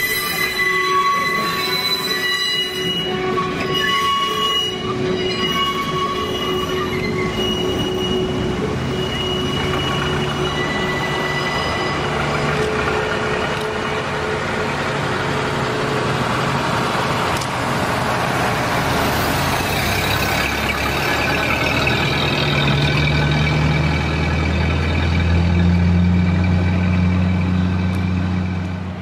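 Steel wheels of slow-moving railway cars squealing on the rails in several steady high tones that come and go for the first dozen seconds. An engine drone from vintage road vehicles driving past rises beneath it and grows louder toward the end.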